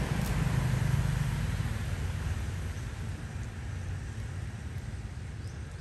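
A low rumble, loudest at the start and fading away over a few seconds.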